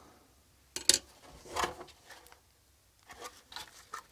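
Circuit board and plastic housing of a circuit breaker's electronic trip unit handled by gloved hands: a sharp click about a second in, a short rubbing sound, then a few light ticks near the end.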